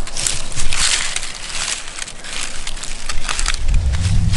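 Dry leaf litter crunching and crackling as a deer skull and jaw are handled and moved about among the leaves, with a low rumble coming in near the end.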